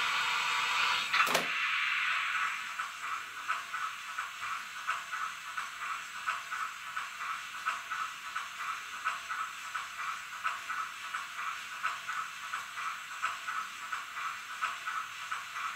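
Roco HO-scale BR 52 model steam locomotive's digital sound decoder: a steady steam hiss with a sharp click about a second in, then a regular rhythmic beat of about three strokes a second.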